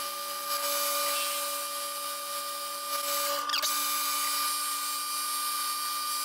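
A 12x36 metal lathe running with a steady, multi-tone whine from its motor and gears while a boring bar cuts a spinning steel ring. About three and a half seconds in, one tone drops out and a short falling scrape is heard.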